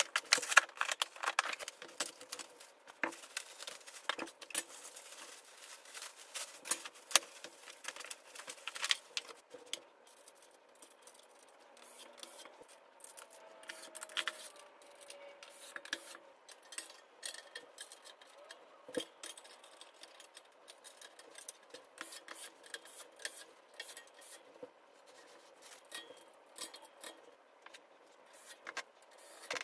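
Furniture assembly handling noise: cardboard box flaps being opened at the start, then irregular light clicks, taps and metal clinks as the parts of a steel-frame dresser are handled and fitted together.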